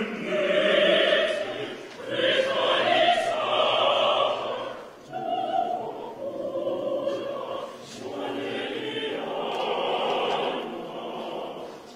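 Choir singing, its phrases broken by brief dips about every three seconds.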